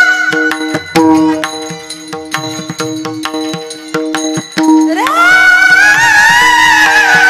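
Devotional Marathi bhajan music: a steady held-tone accompaniment with hand-drum and small-cymbal strokes. A high sung note ends at the start and the instruments play on alone. About five seconds in, the singer comes back in, sliding up into a long, high held note.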